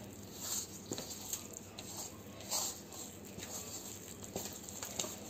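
Wooden spatula stirring flour into wet yeast dough in a stainless steel bowl: irregular scraping, squelching strokes with a few light knocks against the bowl.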